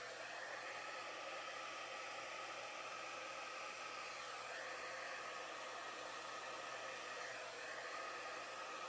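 Handheld hair dryer running steadily on medium fan with cool air, a continuous rush of air whose pitch shifts slightly a few times.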